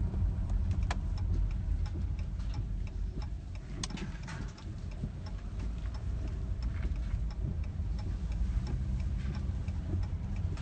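Car driving slowly, heard from inside the cabin: a steady low road and engine rumble, with light ticks scattered through it, the sharpest about a second in and again around four seconds.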